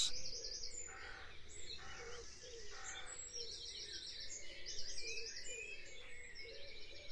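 Dawn chorus of wild birds singing and chirping, with high rapid trills repeating every second or so over a soft background hiss.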